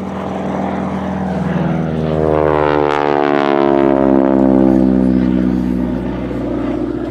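North American Harvard's nine-cylinder radial engine and propeller making a pass, the engine note dropping in pitch as it goes by, loudest about four seconds in.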